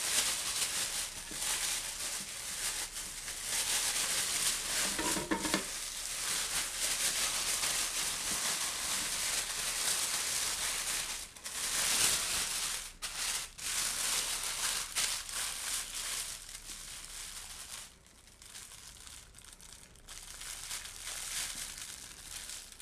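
Plastic baking bag crinkling and rustling as the potatoes and meat inside are shaken and worked by hand to mix them. It is quieter in the last few seconds.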